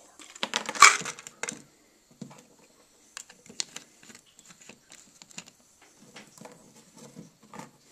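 Plastic pill bottle being handled: a loud burst of clatter in the first second and a half, then scattered light clicks and taps as the bottle and its cap are turned and set down.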